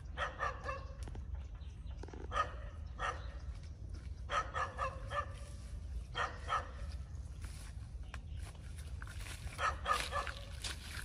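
A dog barking in short bouts of a few barks each, with pauses between them and a longer gap before the last bout near the end.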